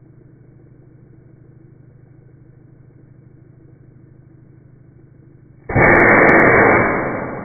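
A small pump on a homemade steel wool firework launcher hums steadily while the steel wool pre-burns. Near the end a sudden loud blast of air rushes out, ejecting the burning steel wool, and fades away over a second or so.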